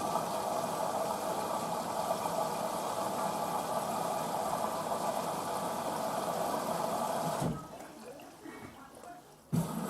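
Hoover VisionDynamic washing machine filling through its water inlet: a steady rush of water at the start of a wash cycle. It cuts out about seven and a half seconds in and starts again abruptly near the end.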